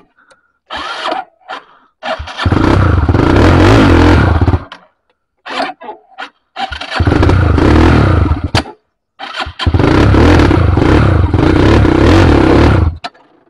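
Dirt bike engine being cranked over to start: a few short bursts, then three long tries of two to four seconds each, falling silent between them without settling into an idle.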